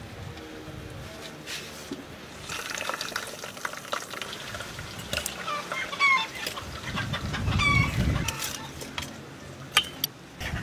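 Metal tongs clinking lightly against a stainless steel colander and bowl as fried chicken pieces are handled. A bird calls twice in the background.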